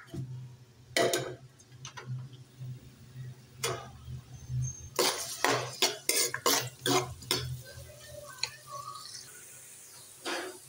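A spoon knocking and scraping against a metal karahi as sliced onions are stirred in hot oil, with a few separate knocks and then a quick run of about nine knocks in the middle. A low steady hum runs underneath.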